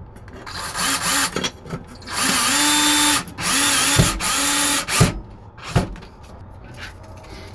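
DeWalt electric drill driving screws through a metal DIN rail into a plywood wall, the motor running in about three bursts of a second or so with a steady whine. A few sharp knocks follow in the second half.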